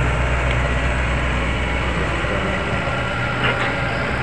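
Diesel engine of a Komatsu PC138US excavator running steadily while it works. Its low hum eases about halfway through, and a few light clicks come near the end.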